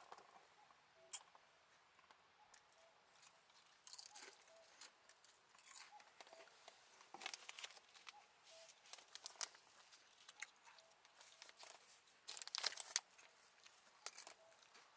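Faint, scattered rustling, crinkling and clicks of things being handled, busier in the second half and loudest near the end, with a faint short note repeating every second or so in the background.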